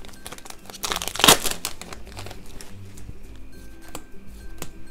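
Foil wrapper of a Pokémon card booster pack crinkling as it is handled and torn open, with the loudest burst of crackling about a second in. Faint background music plays underneath.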